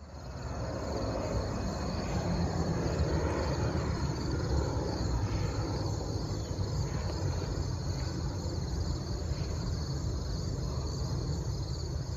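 Distant jet airliner's engines, a steady low rumble with a hiss, as it climbs away after takeoff.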